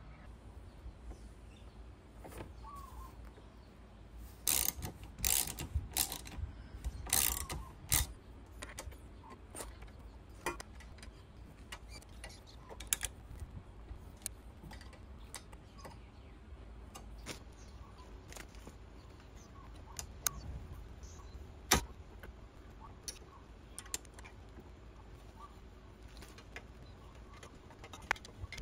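Surf rack clamps and tube being fitted and tightened onto a scooter's rack mount: short runs of ratchet clicking about four to eight seconds in, then scattered single metal clicks and knocks, one sharp loud click near the end.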